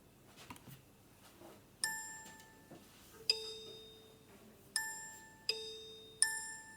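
Bell-like mallet tones struck one at a time, each ringing and fading, alternating between a higher and a lower note. There are two slow strikes about a second and a half apart, then three quicker ones, in the pattern of a count-in to a playalong track. A few faint clicks come before the first tone.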